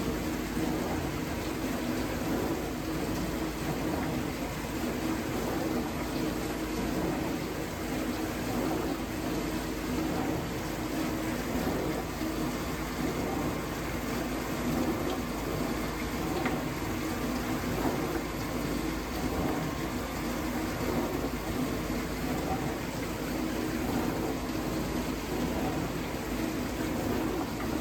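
Vintage dishwasher running mid-cycle: a steady pump hum with water spraying and splashing inside the tub. The owner suspects the pump is restricted, as the water no longer hits the tub at full force.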